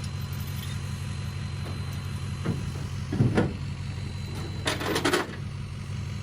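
An engine idling steadily, with a short louder knock about three seconds in and a brief rattling clatter about five seconds in.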